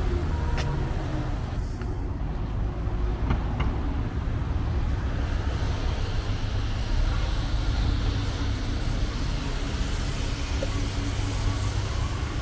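Steady city street traffic noise, a low rumble of passing cars, with a few faint clicks in the first few seconds and a steady low hum joining about eight seconds in.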